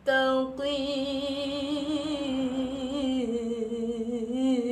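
A woman's voice reciting the Quran in a slow melodic tilawah style, holding one long drawn-out note with wavering ornaments. It begins right after a short pause for breath and steps a little lower in pitch about three seconds in.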